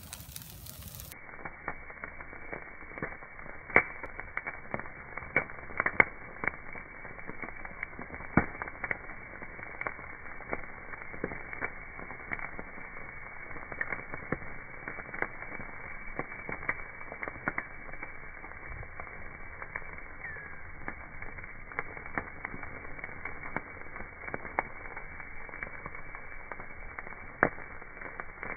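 Bonfire of dry grass and twigs burning, crackling with frequent irregular sharp pops over a steady rush of flame.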